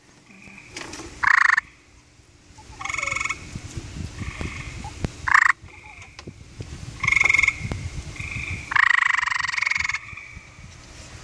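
Gray treefrog mating calls: about six short trills, some louder and some fainter, with the last one lasting about a second. A recorded call is playing from a phone and a live frog is answering it.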